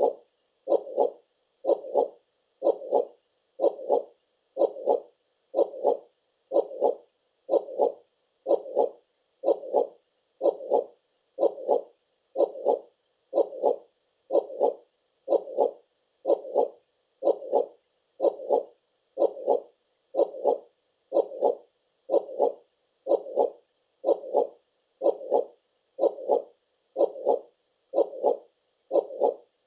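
Heartbeat sound: a steady, even beat at about one beat a second.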